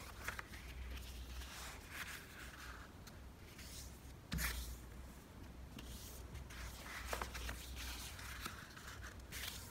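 A sheet of origami paper being handled and folded on a wooden table: intermittent crinkling, creasing and sliding of the paper, with a sharper tap about four and a half seconds in.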